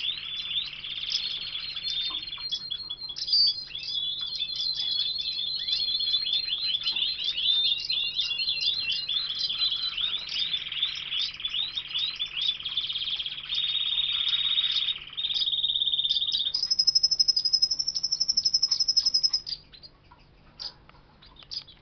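Caged domestic canaries singing: long rolling trills and rapid chirps, with a higher, faster trill near the end before the song breaks off.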